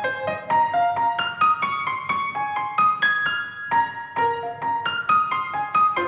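Background music: a piano melody of quick single notes, about three to four a second.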